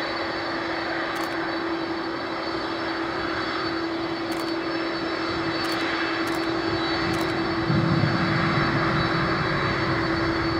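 Boeing 747-400's four jet engines running at low power as the airliner rolls past on the ground: a steady engine whine over a broad rush, with a low rumble that swells about eight seconds in.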